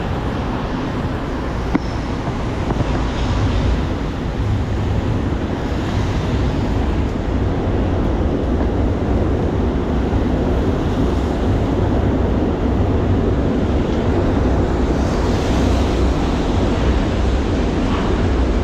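Wind buffeting the microphone, a steady rushing rumble, over the noise of rain and street traffic.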